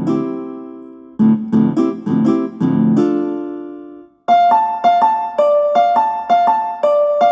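Instrumental ringtone tune on a piano-like keyboard. Low chords are struck and left to ring out and fade. After a brief gap about four seconds in, a brighter, higher figure of quick notes repeats at about four notes a second.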